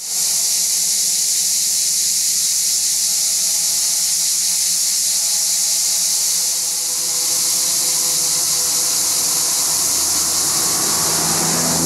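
Cicadas singing in a steady, loud, high-pitched chorus. Near the end a passing car's noise swells underneath as it approaches.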